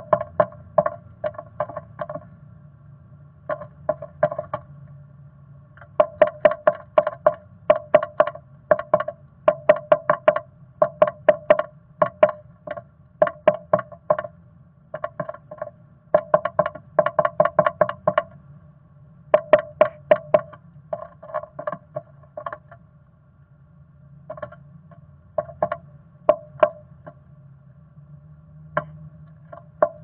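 Black-capped chickadee pecking at the wood inside a wooden nest box: bursts of sharp knocks, about four a second, with short pauses between bursts, each knock ringing in the hollow box.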